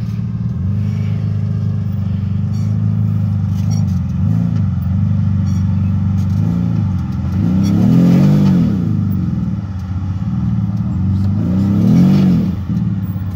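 Can-Am Maverick side-by-side's engine running under load as it crawls up a rock ledge, revved up and back down four times, the biggest revs about eight seconds in and again near the end.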